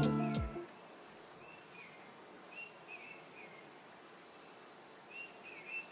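A music track fades out just after the start, then quiet forest ambience with small birds giving short, high chirps several times.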